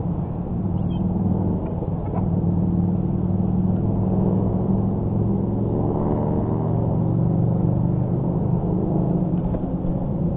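A steady low engine rumble with a droning hum that shifts a little in pitch about six seconds in.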